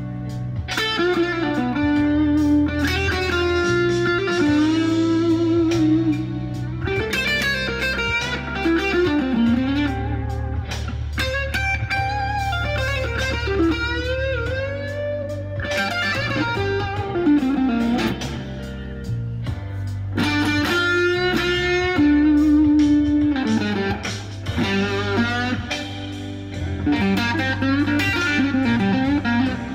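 PRS P22 electric guitar through an MXR boost/overdrive pedal playing a blues lead, with frequent string bends and wavering vibrato on held notes. Underneath runs a blues backing track with bass and drums.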